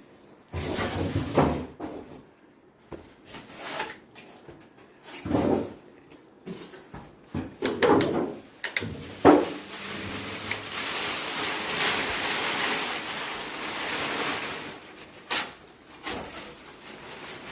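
Unpacking and handling a new refrigerator: scattered knocks, scrapes and door or drawer sounds, with a longer stretch of steady rustling in the middle.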